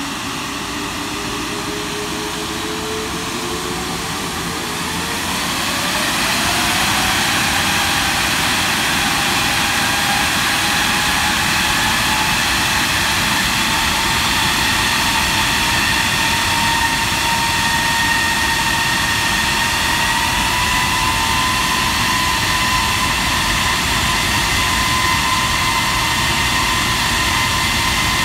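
Rolls-Royce Trent 895 turbofan on a Boeing 777 spooling up in a high-power ground run. Its whine climbs steeply and gets louder about five seconds in, then holds as a steady whine that keeps edging slowly higher in pitch.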